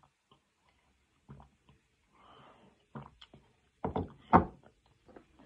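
A girl burning from a hot chili pepper gulps milk, then makes short thumps and muffled coughs into her hand, loudest about four seconds in.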